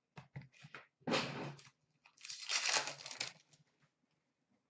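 A trading card pack's wrapper torn open and crinkled: a few light clicks, then a short rustle about a second in and a longer crinkling rustle from about two seconds in.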